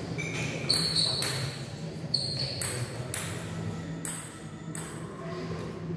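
Table tennis rally: the celluloid ball clicking off paddles and bouncing on the table, about two hits a second, with a few short high squeaks in the first seconds, in a large echoing hall.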